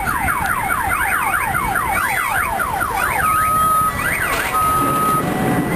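Car alarm cycling through its tones: a fast rising-and-falling warble, about five sweeps a second, which a little past halfway switches to two steady tones alternating high and low.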